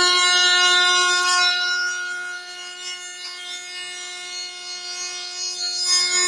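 Table-mounted Bosch router spinning a mitre lock cutter with a steady high whine while a board is fed past the bit. The sound drops in level a little after two seconds in and rises again near the end.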